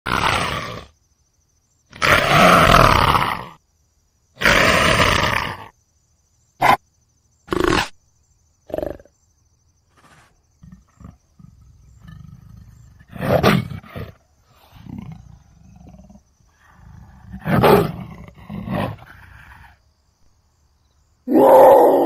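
A big cat roaring and grunting. Three long, loud roars come first, then a few short grunts, then softer growls and low rumbling broken by two more calls, with another loud roar starting near the end.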